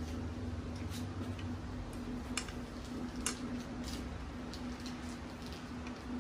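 Several sharp, light metal clicks at uneven intervals, the kind made by a hex key and bolts while a chair is being screwed together, over a steady low hum.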